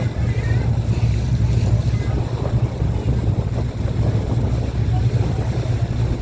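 Passenger motorboat's engine running steadily with a constant low hum, over the rush of water along the hull.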